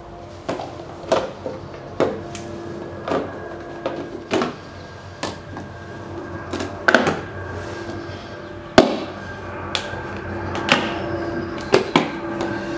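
Irregular sharp clicks and knocks, about one a second, from a plastic food-storage box and its clip-on lid being handled and pressed shut, with a pair of pliers set down on the floor.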